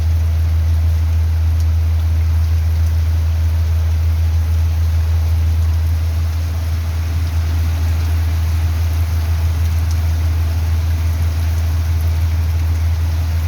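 Heavy rain pouring steadily, with a loud steady low rumble underneath.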